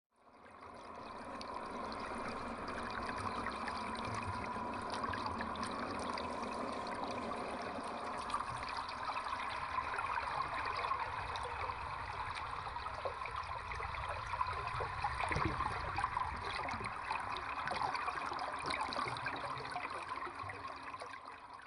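Water trickling and running steadily, with many small splashes; it fades in over the first couple of seconds and fades out near the end.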